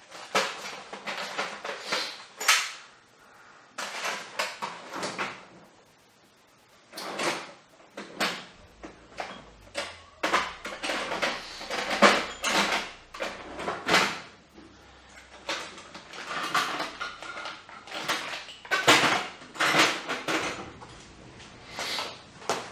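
Steel punches and hand tools clattering and knocking on a workbench in irregular bursts, with a short lull a few seconds in, while the right-size punch is sought to drive out a stubborn barrel link pin.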